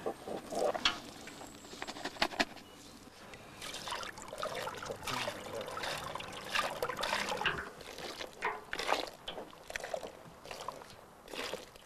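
Water poured from a metal pail and splashing irregularly through freshly grated potato in a wooden-framed sieve as a hand rubs the mash. This is the straining step that washes the potato starch out.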